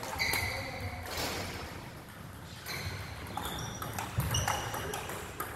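Table tennis balls striking paddles and the table: sharp clicks at uneven intervals, several with a short high ping.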